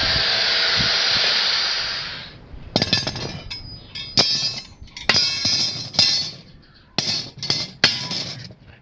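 A loud steady hissing noise from a metalworking tool on steel rebar stops a little past two seconds in. It is followed by a string of sharp metal clinks and knocks, about ten of them, some with a short ring, as steel pieces are struck or handled.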